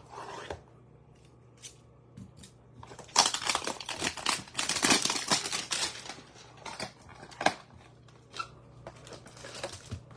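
Trading-card hanger box being torn open and its packaging crinkled, with a dense burst of tearing and crackling for about three seconds in the middle and lighter rustles and clicks around it.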